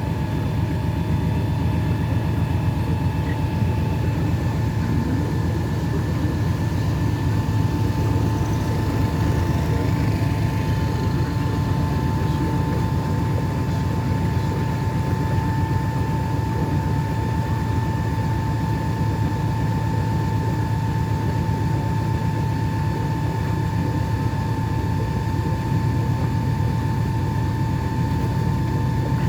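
River cruise boat's engine running steadily: a low drone with a constant whine on top.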